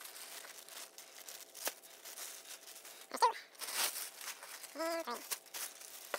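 Packing wrap being rustled, crinkled and torn open to free golf shafts, with two brief vocal sounds a few seconds in.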